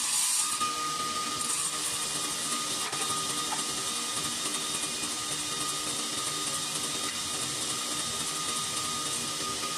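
Table saw running steadily, its blade spinning free without cutting: an even hum and rush of air with a thin steady whine on top.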